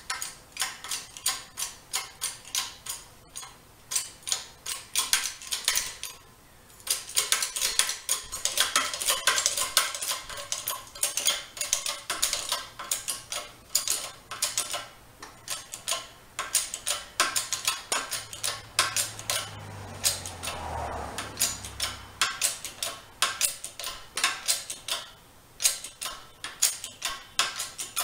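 Bottle-jack pump handle of a 20-ton hydraulic shop press being worked stroke after stroke, giving a run of metallic clicks and clinks a few times a second as the ram presses a front wheel bearing into the scooter wheel's hub.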